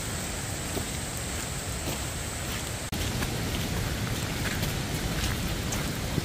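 Steady rain falling on the forest and trail, with scattered small drop ticks over a low rumble. The sound cuts out for an instant about halfway through, then carries on the same.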